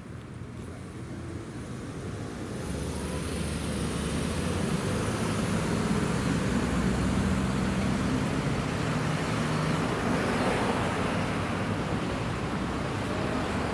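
Road traffic with a motor vehicle's engine running close by. It grows louder over the first four seconds, then holds as a steady low hum with tyre and road noise.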